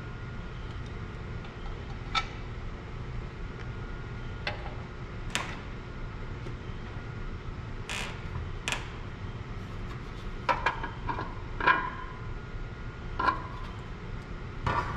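Scattered clicks and light knocks of a plastic fuel tank and small engine parts being handled and set onto a small engine on a workbench, over a steady low hum.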